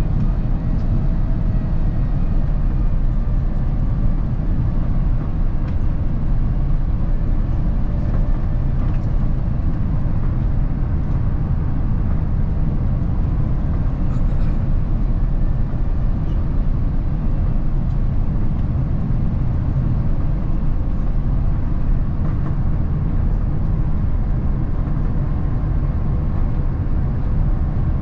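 Steady low rumble inside the cabin of an Airbus A350-1000 airliner: its Rolls-Royce Trent XWB engines and airflow, with a faint steady whine over the top.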